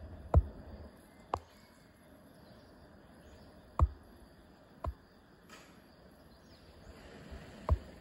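Five sharp knocks, irregularly spaced a second or more apart and heaviest at the low end, typical of a smartphone being handled while it films, over a faint steady outdoor background hiss.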